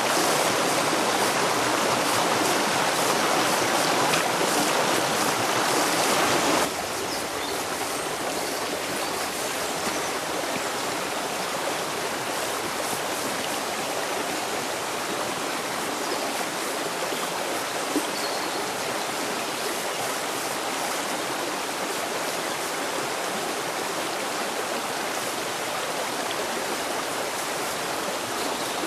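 Shallow rocky stream running and burbling over stones, a steady rushing of water. About seven seconds in it abruptly becomes quieter and then holds steady.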